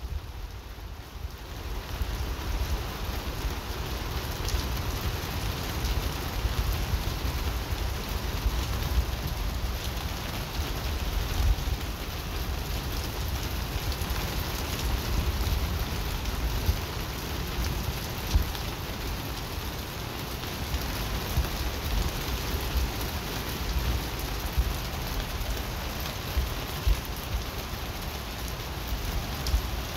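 Heavy rain falling steadily in a thunderstorm, with a constant low rumble underneath and a few sharper drop impacts now and then.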